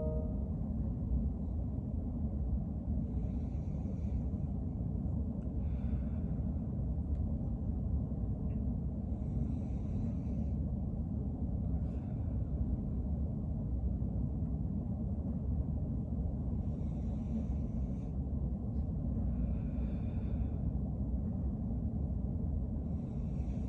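A person taking slow, deep breaths in and out for a lung exam, heard as faint airy breaths every few seconds in pairs, over a steady low rumble.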